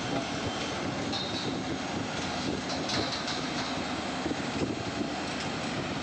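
Tata Hitachi tracked excavator's diesel engine running steadily while it works against a concrete wall, with a few faint high scrapes near the middle.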